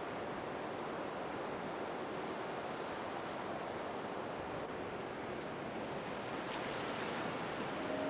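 Heavy rain falling in a steady downpour, an even hiss.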